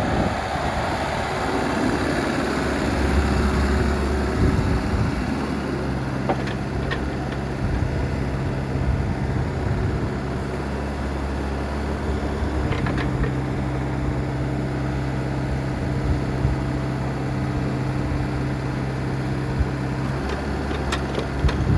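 Kubota KX161-3SZ midi excavator's diesel engine running steadily, its note stepping to a different pitch a few times, with a few short sharp knocks.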